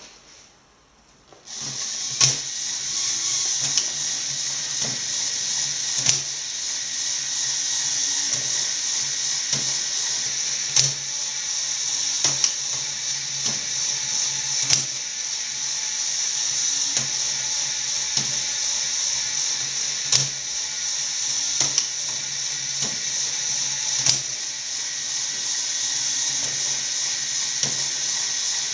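Lego Technic mechanical loom running on its electric motor. It starts about a second and a half in, with a steady whir of motor and plastic gearing and sharp plastic clacks from the mechanism every second or two.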